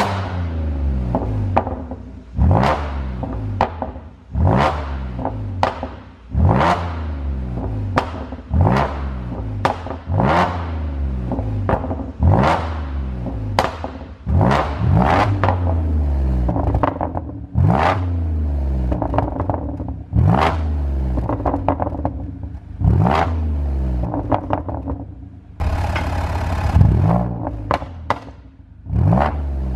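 Audi A6 3.0 TFSI supercharged V6 being blipped over and over, about every two seconds, each rev falling away into a burst of pops and crackles from the exhaust on the overrun: a pop-and-bang engine tune.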